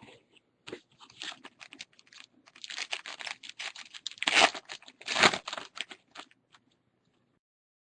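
Trading cards and a foil pack wrapper being handled: an uneven run of rustles, crinkles and clicks as a pack is opened and the cards are flicked through, with two louder rustles about four and a half and five seconds in.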